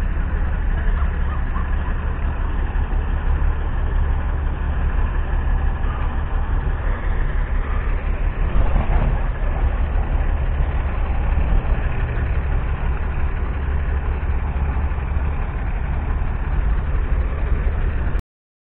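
Steady low rumble of heavy semi-truck diesel engines idling, cutting off suddenly near the end.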